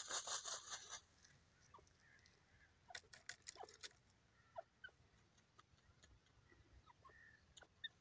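Grey francolin dust-bathing in dry soil: quick bursts of rustling wing-flicks and scratching that throw up dirt, the strongest in the first second and another run about three seconds in, with a few faint short bird notes between.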